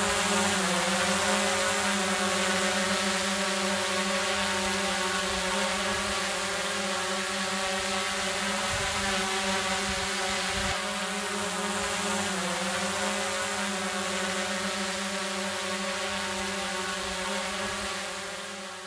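A steady, sustained electronic drone made of several layered pitched tones, dipping briefly in pitch near the start and again about two-thirds of the way through, then fading out near the end. It is the sound design for the animated end logo.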